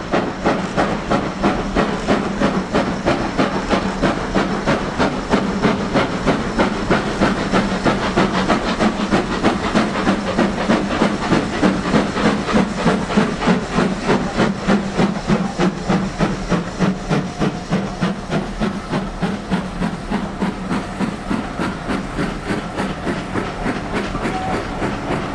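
Steam locomotive working a passenger train past, its chimney exhaust beating steadily at about three beats a second, with steam hiss. The beats ease off a little in the last few seconds as the locomotive draws away.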